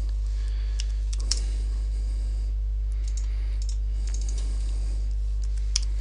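Scattered computer keyboard keystrokes and mouse clicks, in small clusters, as dimension values are typed in. A steady low hum runs underneath.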